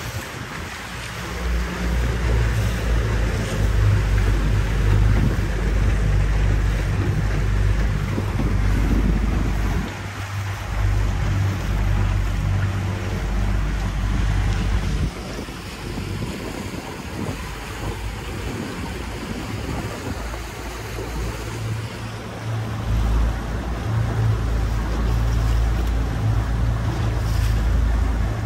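Motorboat under way: a low rumble with wind buffeting the microphone and water rushing past the hull. It eases off for several seconds past the middle and picks up again a few seconds before the end.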